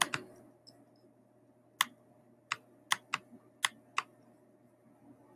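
About eight sharp, separate clicks at a computer, irregularly spaced, as the on-screen pen tool is picked and used to write, over a faint steady hum.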